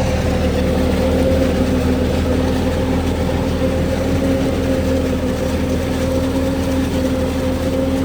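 Heavy diesel farm or truck engine running at a steady speed, with a constant hum and a steady whine over it.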